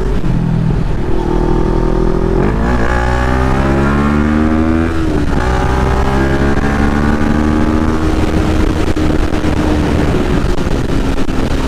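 CFMoto NK400 motorcycle's parallel-twin engine pulling hard under acceleration, heard from the rider's seat over steady wind rush. Its note climbs for a couple of seconds, breaks briefly about five seconds in as at a gear change, then runs on more evenly.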